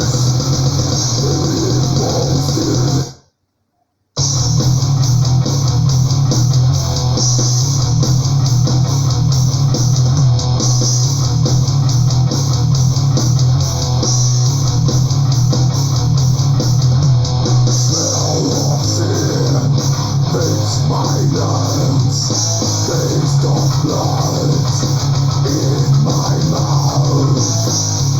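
Death/thrash metal recording with distorted electric guitars and bass. One track fades out about three seconds in, followed by a second of silence, then the next track starts and plays on.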